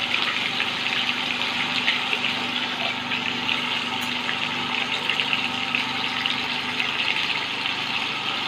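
Fish pieces shallow-frying in hot oil in a pan: a steady sizzle full of small crackles and pops.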